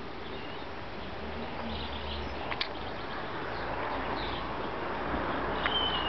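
Outdoor garden ambience: a steady background hiss with a few faint, short bird chirps and whistles scattered through it, and one small click about halfway.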